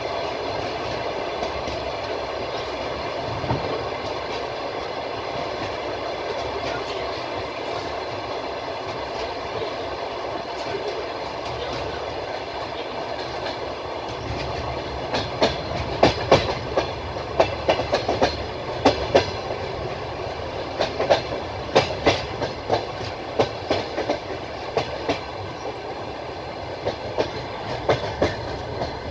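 Train running on the rails: a steady rolling rumble, then from about halfway through the clickety-clack of the wheels knocking over the rail joints in quick groups of sharp beats.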